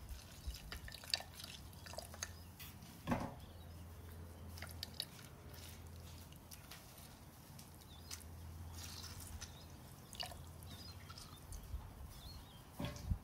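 Lemon juice dripping into olive oil in a mini-chopper bowl as lemon halves are squeezed by hand, with scattered faint clicks and two louder knocks, about three seconds in and near the end, over a faint low hum.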